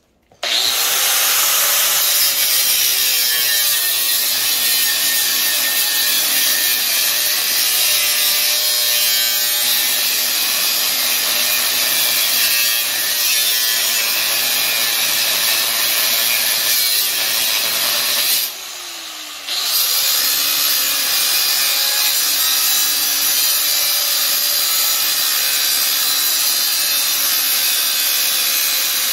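Makita angle grinder grinding down the metal welds of a shopping cart's basket, a steady loud grinding that starts abruptly just after the beginning. The grinding drops off for about a second past the midpoint, then bites in again.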